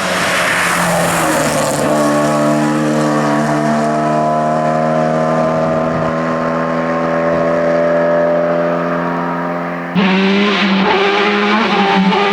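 Race car engine held at steady high revs, then about ten seconds in a sudden change to an engine revving up and down.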